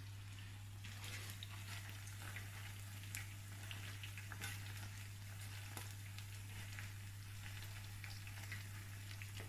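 Battered artichoke wedges deep-frying in oil at a fairly low temperature: a faint, steady sizzle with scattered small pops as the pieces are turned in the pan.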